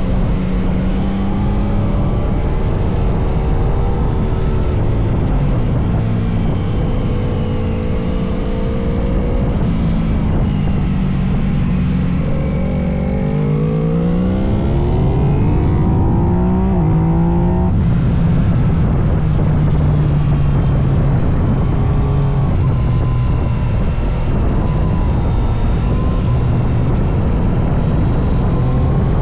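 Yamaha MT-09 SP's three-cylinder engine running under way, its pitch rising and falling with the throttle. In the middle it revs up in a long rising pull, then drops back suddenly and settles into a steadier tone.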